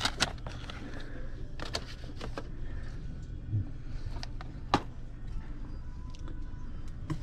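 Plastic DVD cases and a disc being handled: scattered sharp clicks and taps over a steady low hum.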